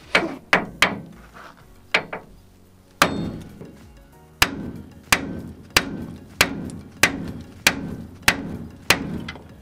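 Hammer repeatedly striking the cast steering knuckle of a 2005 Ford Ranger to shock the stubborn lower ball joint loose: about thirteen sharp, ringing metallic blows, a few scattered ones at first, then a steady rhythm of about one and a half blows a second from about four seconds in.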